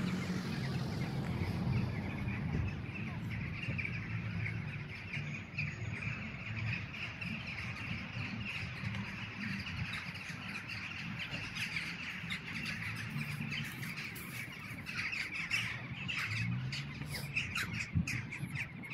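A flock of crows calling continuously over a low city rumble, with footsteps crunching on snow in the last few seconds.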